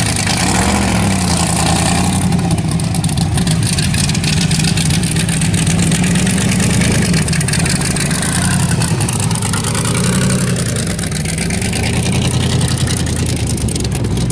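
Rat rod pickup's engine running loud and lumpy as the truck creeps along at low speed, its pitch swelling and easing slightly with small changes of throttle.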